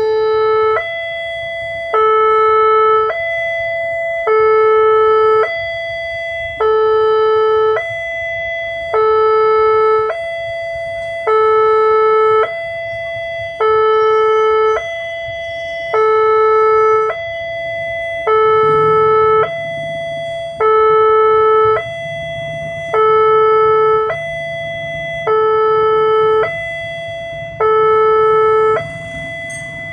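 Railway level-crossing warning alarm sounding while the barrier is down and a train passes. It is a repeating two-tone signal alternating between a lower, louder tone and a higher one, each held about a second. A low steady hum joins about two-thirds of the way through.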